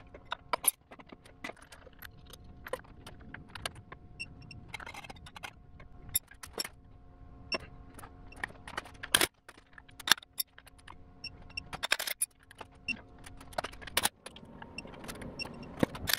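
Metal hand tools and parts clinking and knocking at irregular intervals as sockets, a torque wrench and a sprocket-holding tool are handled at the cam sprockets of a Subaru EJ25 engine. The loudest knocks come about nine and twelve seconds in, over a faint steady hum.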